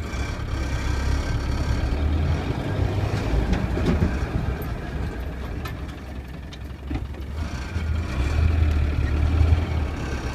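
Car engine and drivetrain running under way, a low rumble that swells and eases twice, with a faint steady high whine above it. This is typical of the strange noise the owner suspects comes from the gearbox or clutch, heard only with the clutch released and under acceleration.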